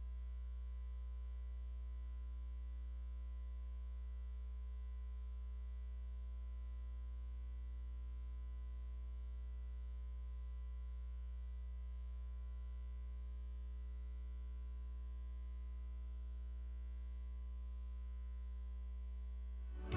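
Steady low electrical mains hum, unchanging, with nothing else heard. Music cuts in abruptly at the very end.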